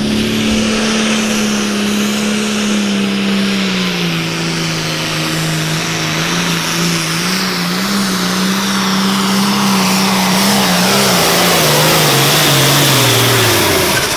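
John Deere Pro Farm pulling tractor's diesel engine running flat out while it hauls the weight sled. Its pitch sags a few seconds in, wavers, then falls steadily near the end as the engine bogs down under the growing load of the sled.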